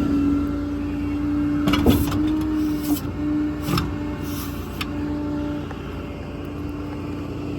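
2018 Ram 5500's 6.7 Cummins diesel running under PTO load with a steady hydraulic-pump whine as the truck's hydraulic outriggers are lowered. Several sharp clunks come about 2, 3 and 4 seconds in.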